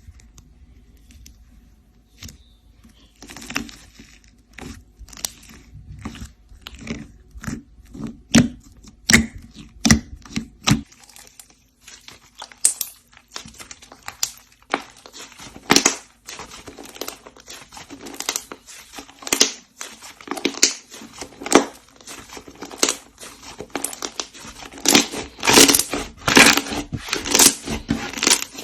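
Slime being squeezed and worked by hand, giving an irregular run of sharp pops and crackles, about one or two a second, thicker and loudest near the end.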